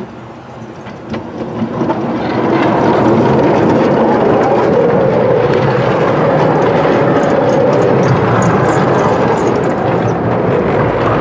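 A narrow-gauge passenger train hauled by an Exmoor 0-4-2T steam locomotive passes close by. Its wheels roll steadily on the rails, getting louder about two seconds in and staying loud as the coaches go past.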